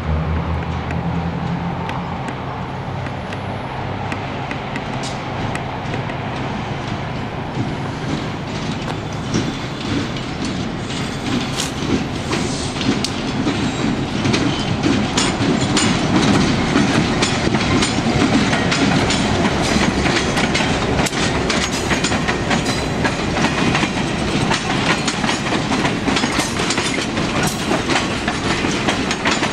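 Diesel-hauled passenger train passing close by: a rumble that grows as it approaches, then the coaches' wheels clattering over the rail joints with many sharp clicks, loudest from about halfway on.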